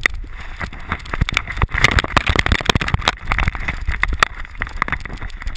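Rhodesian ridgeback running through snow with a camera strapped to its back: rapid, irregular crunching and knocking from its strides, over a low rumble of wind and jostling on the microphone.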